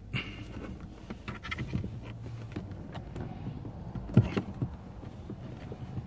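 Plastic clips and trim of a 2008 Honda Civic's master power-window switch panel clicking and rattling as it is pried up out of the door armrest, with one sharp click about four seconds in.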